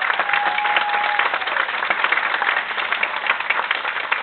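Audience applauding, many hands clapping at an irregular rate, with a short held tone sounding over it about half a second in.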